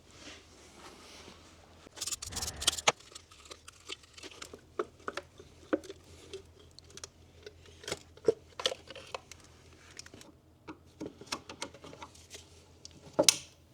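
Scattered clicks, taps and knocks of tools and parts being handled while the ignition cassette of a Saab 9-5 engine is worked loose. There is a cluster of louder clatter about two seconds in and a sharp knock near the end.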